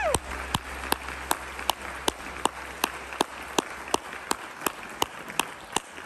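Congregation applauding at the end of a song, with one person's claps standing out close by, evenly paced at about three a second.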